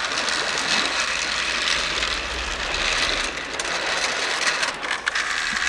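Battery-powered toy train running along plastic track: a steady whirring rattle from its small motor and wheels, with a few clicks near the end.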